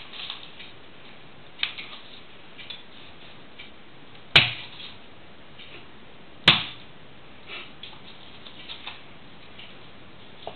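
Kitchen knife cutting cheese on a wooden chopping board: scattered light taps, with two sharp knocks of the blade against the board about four and six and a half seconds in.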